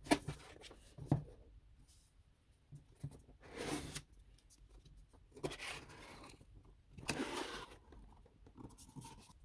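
Product packaging being handled and opened by hand: two sharp knocks about a second apart, then three short bursts of scraping and rustling as the packaging slides, and a few light clicks near the end.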